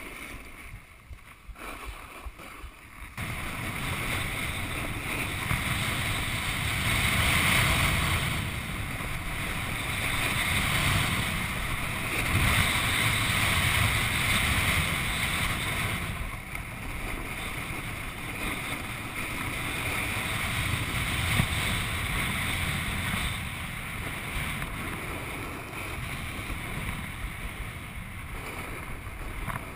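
Rushing noise of a snowboard run: the board sliding and scraping over packed snow, with wind buffeting a chest-mounted camera. It is quieter for the first three seconds, then louder, swelling and easing as the ride goes on.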